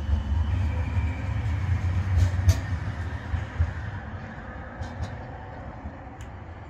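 A CAF Urbos 3 tram pulling away from a stop: a low rumble that is loudest over the first few seconds and then fades as the tram draws away, with a few sharp clicks along the way.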